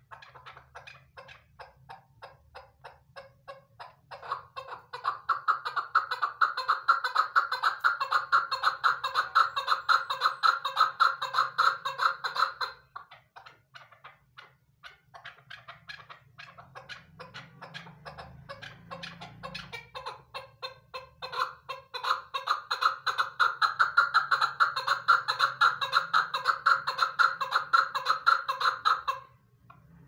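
Female chukar partridge calling: a long, rapid series of repeated chuck notes that builds up to a loud run, breaks off about halfway through, then starts again and builds to a second loud run before stopping shortly before the end.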